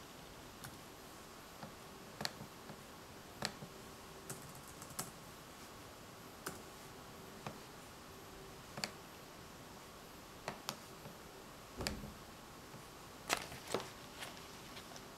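Scattered single clicks and taps on a laptop's keys and touchpad, irregular, about one every second, with a duller knock about twelve seconds in and a quick cluster of the loudest clicks just after it.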